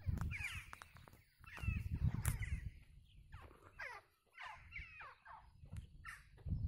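Birds cawing repeatedly: short harsh calls that fall in pitch, coming every half second to a second, over an intermittent low rumble.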